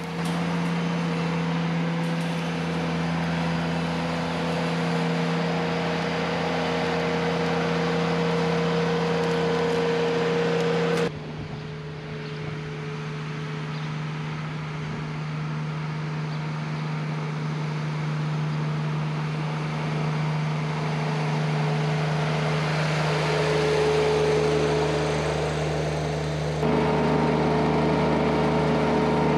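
Ventrac compact tractor's engine running steadily at a high, even speed, with a steady hum. The sound changes abruptly twice, about 11 seconds in and again near the end.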